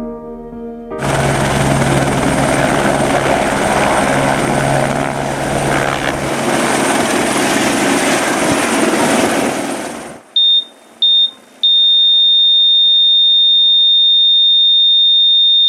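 Helicopter lifting off, its rotor and turbine loud and steady for about nine seconds before cutting off abruptly. Then a patient heart monitor beeps twice and goes into one continuous high flatline tone, the signal that the heart has stopped.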